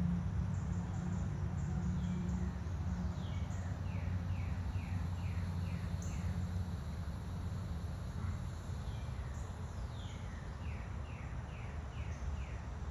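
A songbird singing twice, each song a quick run of about six short down-slurred whistled notes, with a few faint higher chirps, over a steady low rumble.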